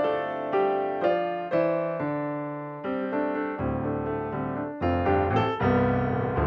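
Background piano music: single notes and chords struck every half second or so, each left to ring and fade.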